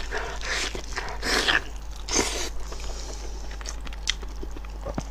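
Close-up mouth sounds of biting into and chewing saucy braised sheep head meat: wet, smacking bites in several loud bursts in the first half, then softer clicks and smacks of chewing.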